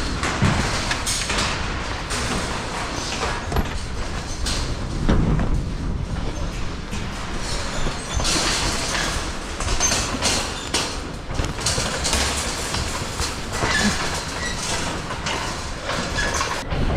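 A train running, with a steady rumble and many short rattles and clatters.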